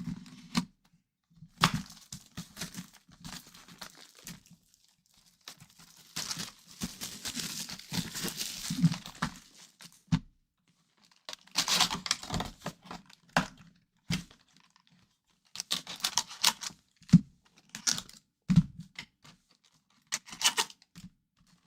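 Plastic shrink wrap being torn off a sealed box of hockey cards and crumpled, in irregular tearing and crinkling bursts. The longest tear comes about six seconds in, with shorter rustles and crinkles after it.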